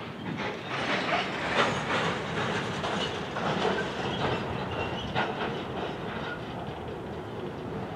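Freight train of covered hopper cars rolling past, the wheels clicking and clattering over rail joints, loudest in the first half.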